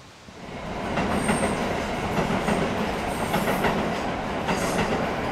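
A train passing close by: a steady rumble of wheels on the track with repeated clicking over the rail joints, swelling in during the first second.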